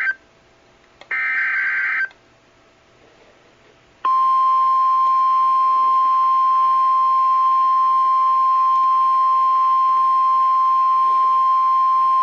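Emergency Alert System tornado warning coming in over NOAA Weather Radio: two short bursts of the digital SAME header screech about a second apart, then after a short gap the single steady warning alarm tone near 1050 Hz starts about four seconds in and holds.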